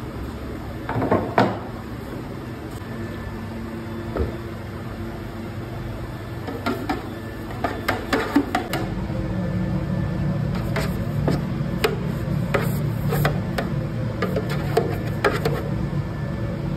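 Light knocks and clinks of steel bread tins being handled and brushed with oil, over a steady machine hum that grows louder about nine seconds in.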